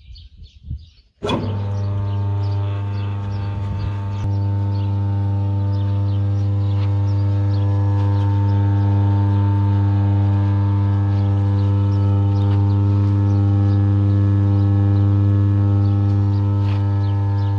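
Troian 3 kW single-phase induction motor (copper-wound, 1500 rpm) switched on about a second in with a click, then running without load with a loud, steady electrical hum.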